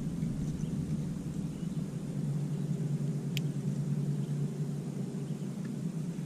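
A boat motor running steadily with a low, even hum, and a single short click about three and a half seconds in.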